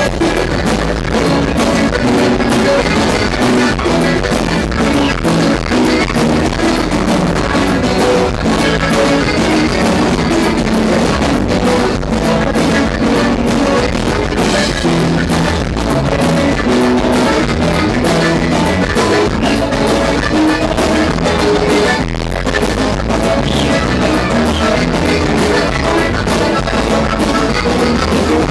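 Live norteño band playing loudly through a PA: button accordion, bajo sexto, electric bass and drum kit together in a steady, driving rhythm.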